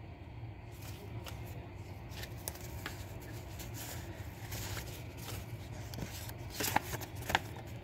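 Fingers handling and shuffling a few polymer 5 ringgit banknotes: faint rustling with light clicks, and a couple of sharper snaps near the end.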